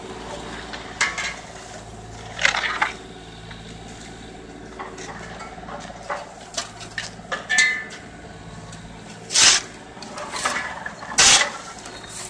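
Steel shovel blades scraping and clanking on the road surface several times, the loudest strokes near the end, over the steady hum of an idling mini excavator engine.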